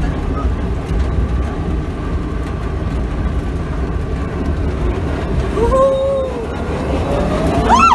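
Electric ZAZ-966 Zaporozhets driving, heard from inside the cabin: steady road and tyre rumble. Near the end a motor whine glides up in pitch as the car picks up speed.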